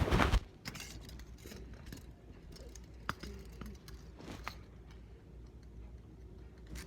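Metal handcuffs ratcheting shut with a short clicking rattle at the start, followed by a couple of faint clicks.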